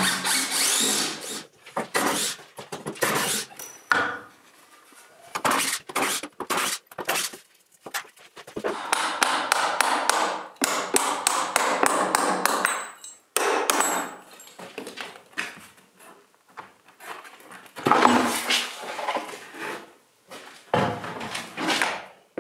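Irregular hammer blows and knocks of hand tools, broken by a few seconds of denser rough scraping and clattering.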